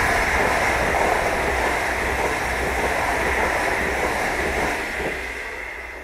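TCDD YHT high-speed electric train passing close by at speed: a loud, steady rush of air and wheel noise, fading away about five seconds in as the train recedes.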